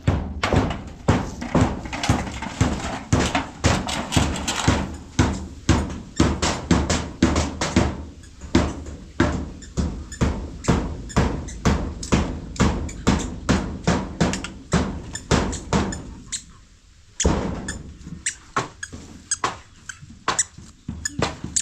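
Rapid, regular strikes, about three a second, with a brief pause about three quarters of the way through.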